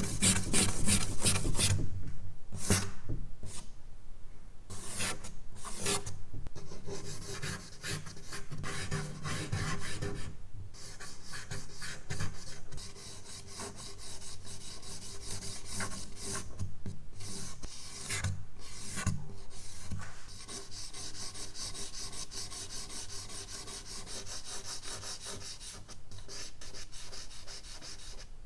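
Charcoal stick scratching and rubbing across drawing paper in quick, repeated hatching strokes. The strokes are heavier and louder in the first several seconds and lighter later on.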